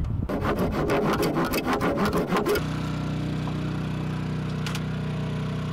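Fast rasping strokes of a hand tool working the wooden hush box. About two and a half seconds in this gives way abruptly to a portable generator running steadily, hushed inside its foam-lined box.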